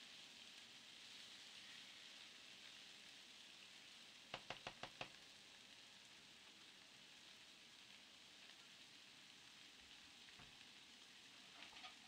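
A knife blade clinking against a ceramic plate while cutting cake: a quick run of about five light clicks about four seconds in and a few more near the end, over a faint steady hiss.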